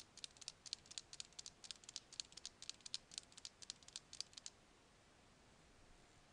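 Typing on a computer keyboard: a quick, uneven run of key clicks lasting about four and a half seconds, then it stops.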